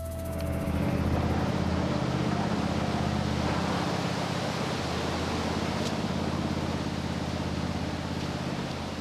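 An engine running steadily: a low, even hum with a steady hiss over it.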